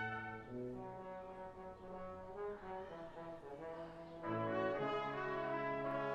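Brass quintet of two trumpets, French horn, trombone and tuba playing a pop-song medley arrangement in sustained notes. The music is softer at first, and the full group comes in louder about four seconds in.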